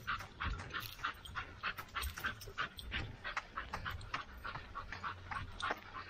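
Fast, rhythmic panting over footfalls on a dirt trail while running, about four or five beats a second.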